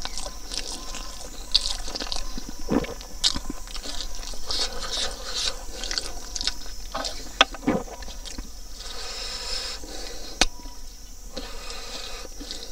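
Close-up eating sounds: wet chewing and lip smacking on a mouthful of pork ribs and rice, with fingers squishing and mixing the rice and meat. It is a string of irregular small clicks and crackles.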